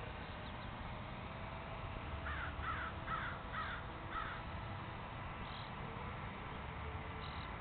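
A crow cawing five times in quick succession, about two caws a second, over a faint steady background hum.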